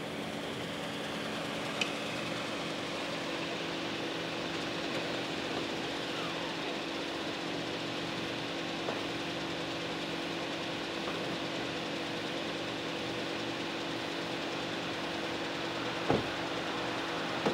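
Toyota SUV's engine idling steadily, with a light click about two seconds in and a car door shutting with a short thump near the end.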